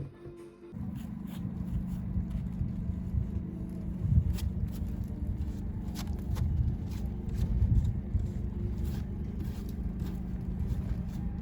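Car engine running, a steady low rumble with a constant hum, starting about a second in, with scattered light clicks over it.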